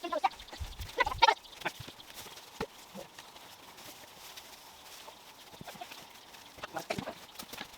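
Farm animal calls in two short spells, one near the start and one near the end, with scattered light knocks between them.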